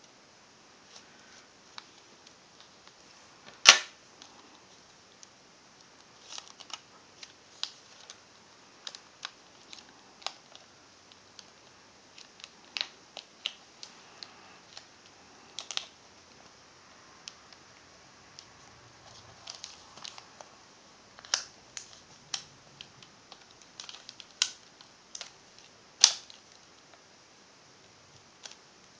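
Small irregular clicks and taps from fingers working a laptop screen's video cable connector and tape against the back of the LCD panel, with two louder sharp clicks, one about four seconds in and one near the end.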